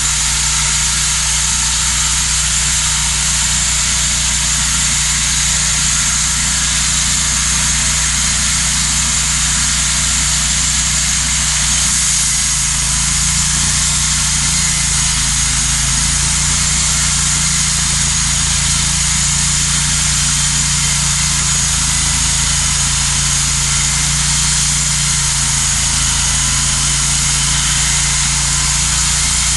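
Cook's MP-32 portable band sawmill running steadily under its engine while the band blade saws through a log. The engine note shifts slightly about twelve seconds in.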